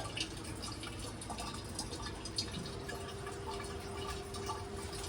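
Coolant water draining and dripping from a skid steer's cooling system, a quiet trickle with scattered small drips.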